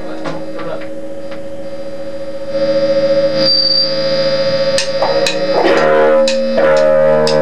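Guitar played through effects, held chords ringing out with a few picked notes. The chord swells about two and a half seconds in and is struck again louder near the end.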